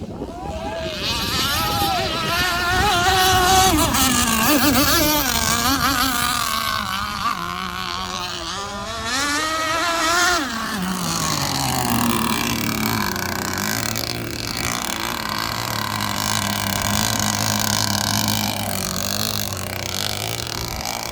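Petrol-engined radio-controlled boat running on the water, its engine note wavering up and down with the throttle, then falling about ten seconds in and settling to a steadier, lower note.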